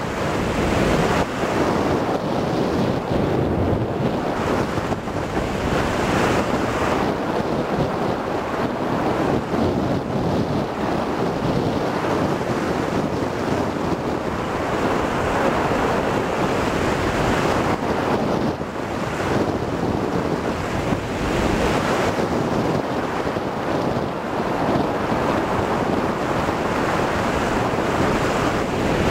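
Wind noise from the airflow of a hang glider in flight, rushing over the microphone of a camcorder taped to the control bar. It is loud and steady, rising and falling slightly.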